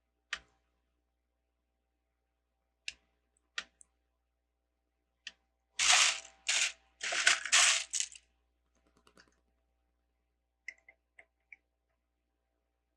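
LEGO bricks being handled: a few sharp plastic clicks, then about two seconds of loud clattering a little after halfway, then a few light clicks near the end.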